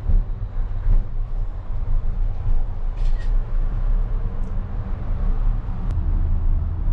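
Cable car cabin climbing: a steady low mechanical rumble and hum heard from inside the cabin, with a sharp click near the end.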